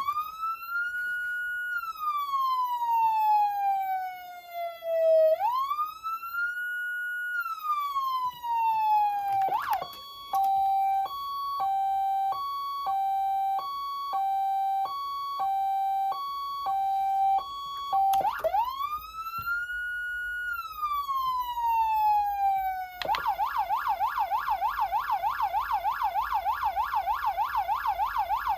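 Code 3 MicroCom 2 police siren amplifier cycling through its tones. It starts with a wail that rises and falls slowly twice, then a hi-lo that alternates between two pitches about every second. After that comes one more wail sweep, and from about two-thirds of the way in a rapid yelp.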